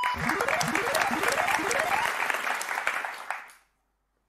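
Applause, with a series of rising tones from the game show's sound effect over it; it all fades out about three and a half seconds in.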